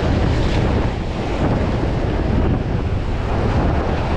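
Strong wind buffeting the microphone over surf breaking and washing against the jetty's rocks: a steady, rushing noise with heavy low rumble.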